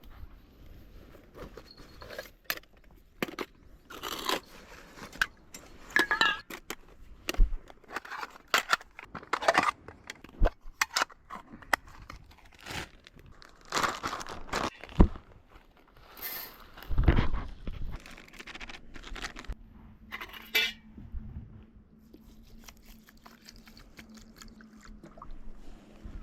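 Irregular handling noises: clicks, knocks and scrapes of things being moved and set down, with a heavier low thump about two-thirds of the way through and a faint steady low hum after it.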